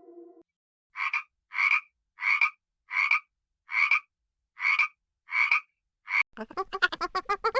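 An animal calling in a regular series of eight short, harsh calls, evenly spaced about two-thirds of a second apart. Near the end a much faster run of rapid calls starts and grows louder.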